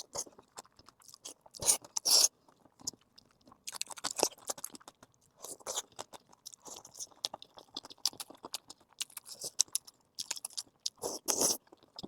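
Chewing and biting into crispy fried food: irregular crisp crunches and small mouth clicks, with the loudest crunchy bites about two seconds in and again near the end.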